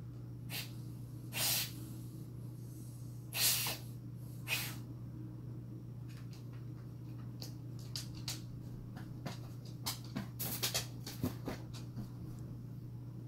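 Springer spaniel sniffing hard at the floor, with a few loud sniffs in the first five seconds as it tracks the scent of a small animal. Then comes a run of light clicks and taps, over a steady low hum.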